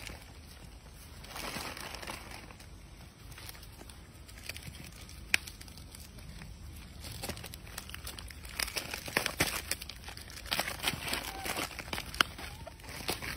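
Plastic snack-cake wrappers crinkling and tearing as macaques grab and rip open the packets. The crackling comes in irregular bursts, with a sharp snap about five seconds in, and grows busiest in the second half.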